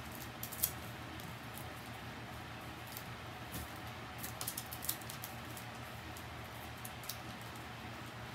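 Hands pressing and smoothing tape onto a cardboard box, a scatter of small crinkles and ticks over a steady low hum.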